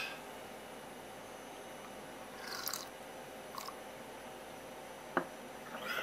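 A ceramic cup set down on a wooden counter gives a single sharp knock about five seconds in, over a faint steady hiss with a few short soft noises.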